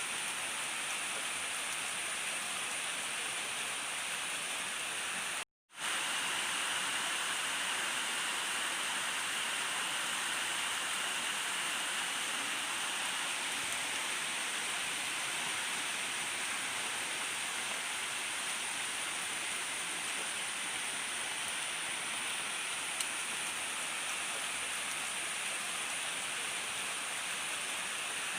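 Steady rain falling, an even hiss, cut off for a split second about five seconds in before it carries on unchanged.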